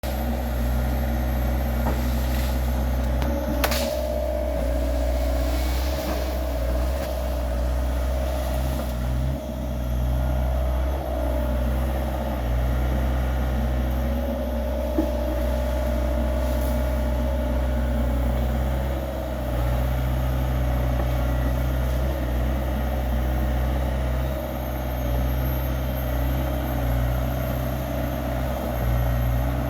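Mini excavator's Yanmar diesel engine running steadily, with a mid-pitched whine that rises and falls over the engine's low hum. A single sharp crack comes a few seconds in.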